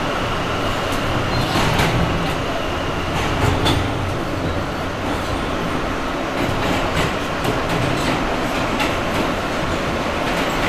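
A New York City R160A subway car running, heard from inside the car: a steady rumble and hiss with scattered clicks and knocks from the wheels passing over the rail joints. There is a faint high tone in the first few seconds.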